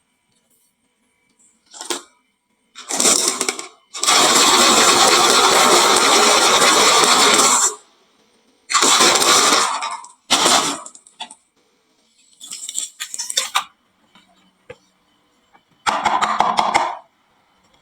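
Marbles rolling and clattering down a wooden marble-run slope and dropping into toy trucks, in a series of rattling bursts; the longest, about four seconds in, is a continuous loud rumble of many marbles at once, followed by shorter clatters and scattered clicks.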